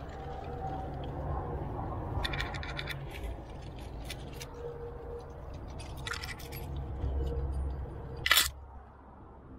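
Climbing gear and climbing moves on rock: scraping and rubbing with scattered clicks, and one sharp, loud click a little after eight seconds in.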